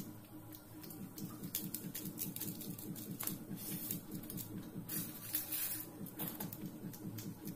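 Eating rice and curry by hand from a steel plate: fingers mixing and scraping the food, with scattered light clicks against the plate, over a steady low hum.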